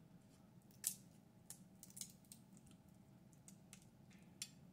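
Faint clicking and crackling of a boiled crawfish shell being cracked and peeled by hand, with a sharper crack about a second in.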